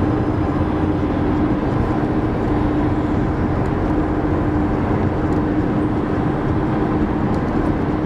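Steady rumble of engine and road noise inside a car's cabin, with a constant low hum running through it.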